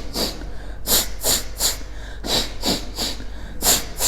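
Forceful, rapid exhalations through the nose in kapalabhati style, about nine sharp hissing puffs in quick runs of two or three. They are blowing leftover neti water and loosened mucus out of the nasal passages after jala neti.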